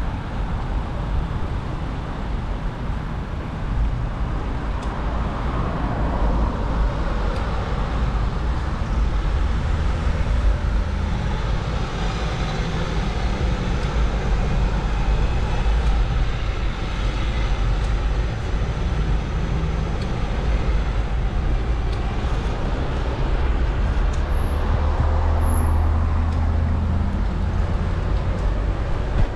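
Wind rushing over a GoPro's microphone on a moving bicycle, a steady low rumble, mixed with road and traffic noise from cars on the street.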